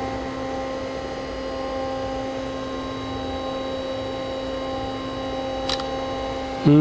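Steady electrical hum of the powered industrial PC with its cooling fans running, a row of fixed pitches, with a single light click a little before the end. At the very end comes a man's brief vocal sound that falls in pitch.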